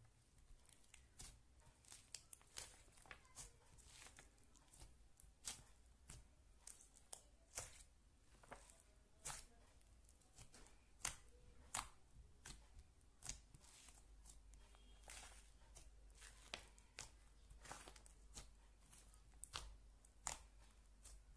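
Slime being squished and stretched by hand, making faint, irregular sticky clicks and pops, about two or three a second.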